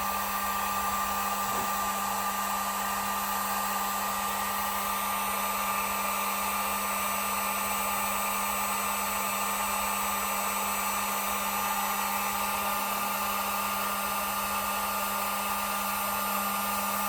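Heat gun running steadily on its low setting: a constant rush of blown air with a steady hum and a higher whine.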